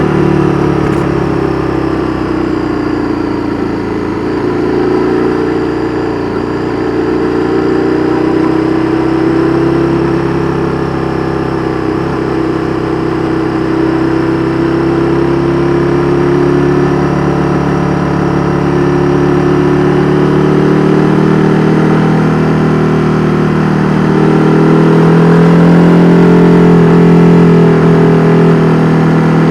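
KTM 1290 Super Duke R Evo V-twin running through an Austin Racing V3 Mini exhaust, holding fairly steady revs with the pitch drifting gently up and down. Near the end it grows louder and a little higher in pitch.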